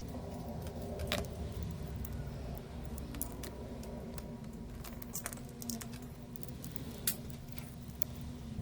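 Scattered light clicks and small metallic rattles of handling on an electronics repair bench, over a steady low hum with a faint steady tone.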